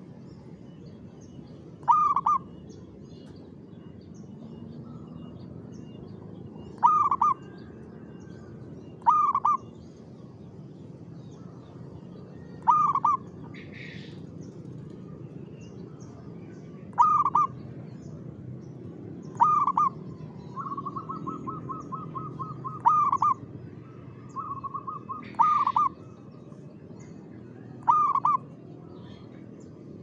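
Zebra dove (perkutut) cooing: about nine short, loud coos spaced a few seconds apart. Twice, after the middle, a quick run of rapid repeated notes leads straight into a coo.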